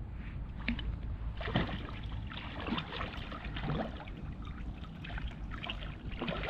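Water splashing and sloshing in irregular bursts, about one every half second, as a hooked carp thrashes at the surface near the bank. A steady low rumble runs underneath.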